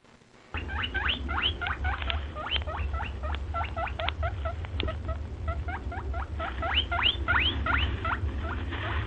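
Small animals squeaking, a rapid run of short rising squeaks several times a second, over a steady low hum. The sound drops out briefly in the first half second, then carries on.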